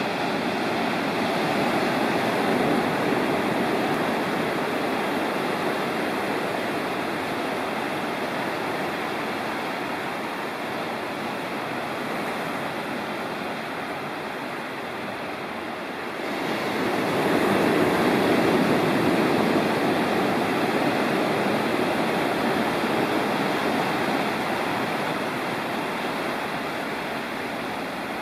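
Sea surf breaking and washing over a rocky, pebbly shore: a steady rush that swells twice, a couple of seconds in and again about two-thirds of the way through.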